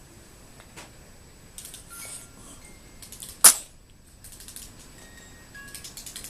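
A baby sneezing once, a single sharp burst about halfway through, with faint clicks and rustles around it.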